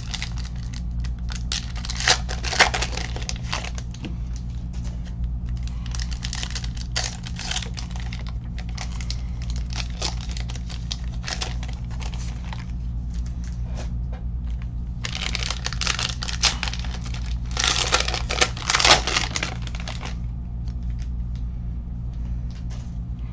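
Plastic wrapping being crinkled and torn in irregular bursts, loudest about 15 to 20 seconds in, over a steady low hum.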